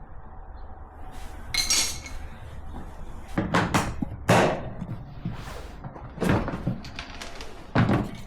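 A string of hard plastic knocks and clunks, about nine at irregular intervals, from a Milwaukee Packout top box being handled and tested at its newly repaired hinge.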